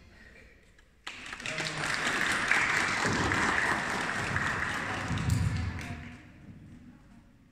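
Applause from a hall full of people, starting suddenly about a second in, running for about five seconds and then dying away.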